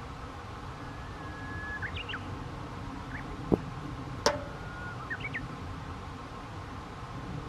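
A thrown Hero Disc HDX235 plastic flying disc lands on the grass with a thud about halfway through, followed less than a second later by a second, sharper clack with a brief ring. Birds chirp briefly several times over a steady outdoor rumble.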